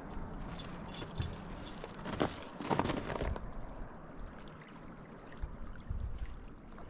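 Light metallic jingling, small metal pieces clinking together for about a second near the start, over a low steady rumble.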